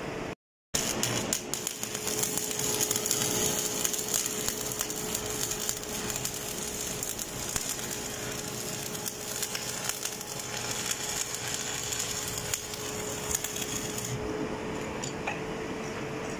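Stick (shielded metal arc) welding on a steel pipe elbow: the electrode's arc crackles and sizzles steadily. It starts just under a second in and stops near the end.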